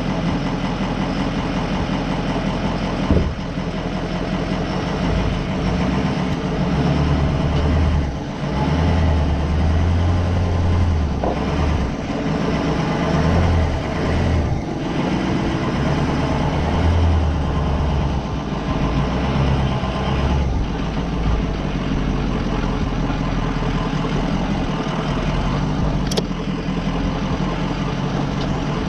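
Ford E350 Sportsmobile van's engine running at low crawling speed, its low rumble swelling and easing through the middle. A single sharp knock sounds about three seconds in.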